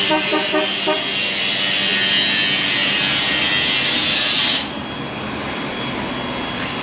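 City street traffic noise: a loud, even rushing hiss that cuts off suddenly about four and a half seconds in. A quick run of short pitched toots sounds in the first second.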